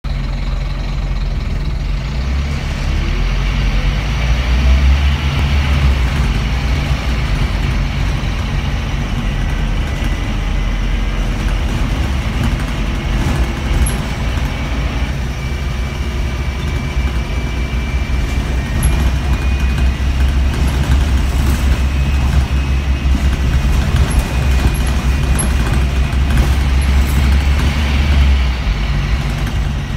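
Scania N230UB single-decker bus heard from inside the passenger saloon: the engine and cooling fan run with a deep drone that swells and eases, and a faint high whine. The cooling fan runs all the time because its sensor is broken.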